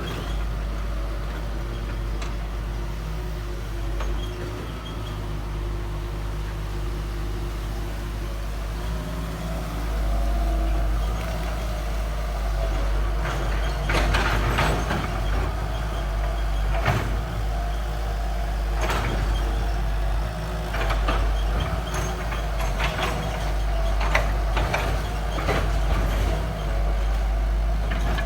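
A backhoe's diesel engine running, its pitch rising and falling as it works. From about halfway on it is joined by repeated sharp metallic clanks and knocks.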